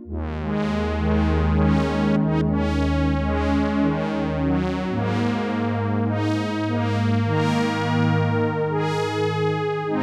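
Korg Minilogue XD four-voice analog synthesizer playing sustained chords over a held bass note on a patch voiced after the Sequential Prophet-10. Each newly struck chord opens bright and then mellows, and the bass note moves down about halfway through.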